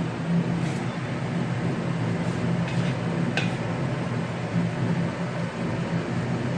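Wooden spatula stirring and turning stir-fried cabbage in a wok, with a few sharp clicks of the spatula against the pan, over a steady hum from the range hood fan.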